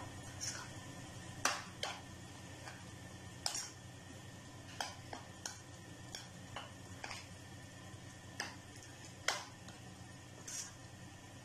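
A spoon clinking and scraping against a ceramic bowl while mixing cooked mutton heart pieces with egg, spices and gram flour: irregular sharp clinks, about one every half second to second, over a faint steady hum.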